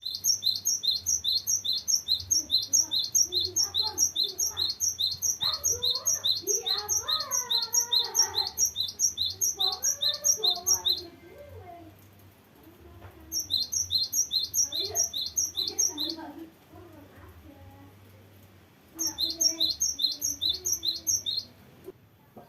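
Cinereous tit (gelatik batu) singing a long rolling song: a fast run of high, evenly repeated notes, about five a second. It breaks off about 11 seconds in and returns in two shorter bursts.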